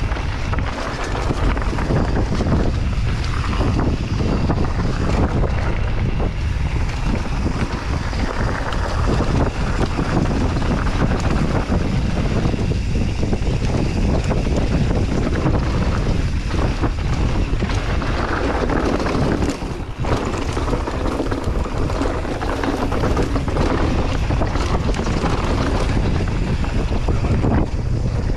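Wind rushing over a camera microphone on a mountain bike riding a dirt trail, a steady heavy rumble with frequent short knocks and rattles from tyres and bike over rough ground.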